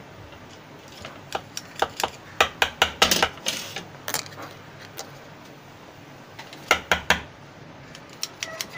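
Clusters of light clicks and taps from the plastic barrel and parts of a P60 toy BB gun being handled and worked to free a jammed 6 mm BB.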